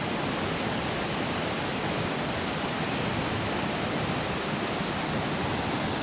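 Rushing water of a fast-flowing, rain-swollen creek: a steady, even hiss.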